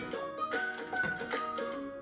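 Instrumental background music with held notes and a regular beat.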